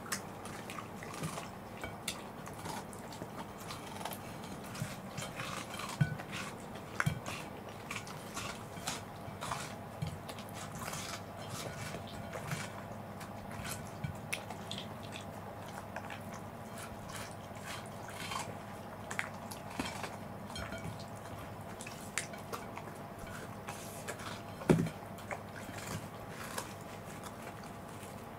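Corgis eating watermelon: wet chewing, slurping and licking of the juicy flesh, with many small clicks and ticks and a louder knock near the end.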